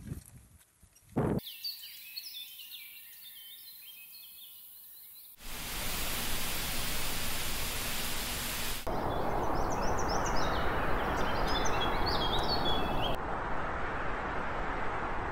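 Songbirds chirping over a quiet outdoor background. About five seconds in it cuts suddenly to a steady rushing roar of water from a dam spillway, and birds chirp over the roar for a few seconds before it carries on alone.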